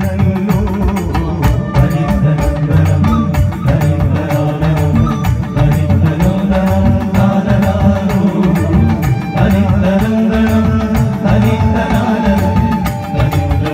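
Live Kuthiyottam song with a steady, driving percussion beat, tabla among it, and a sung melody, played loud through a public-address system.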